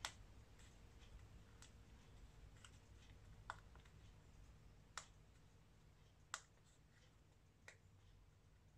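Near silence broken by a handful of small, sharp clicks, roughly one to one and a half seconds apart.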